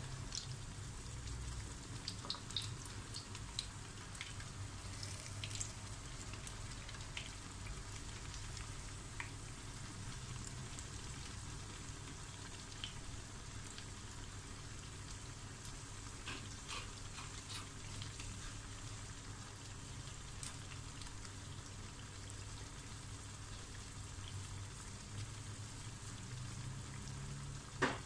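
Potato bajji, gram-flour-battered potato slices, deep-frying in hot oil: a steady sizzle with scattered small pops and crackles.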